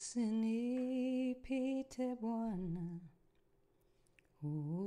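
A woman singing a slow Swahili worship song solo, with no accompaniment, holding long notes. She stops for about a second in the middle, then comes back in on a rising note.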